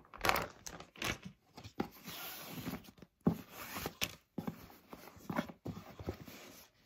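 Clear plastic bag crinkling as it is pulled away, then rustling and a few light knocks as a ribbon is untied and a cardboard gift box is handled.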